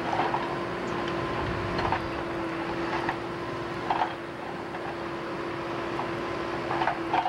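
Steady hum and rumble of running machinery, with a few short faint higher sounds at roughly two-second intervals.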